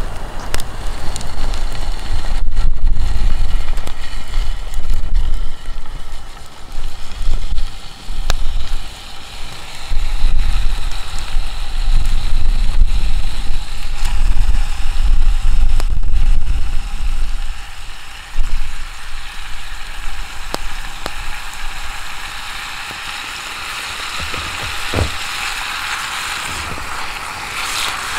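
Wood campfire crackling with scattered sharp pops over a steady hiss. Heavy low rumbles come and go in gusts for most of the first two-thirds, like wind buffeting the microphone, then settle down.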